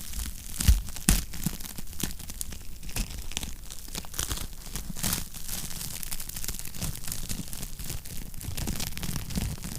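Wood fire crackling in a fireplace: a steady run of small, irregular crackles, with two louder pops about a second in.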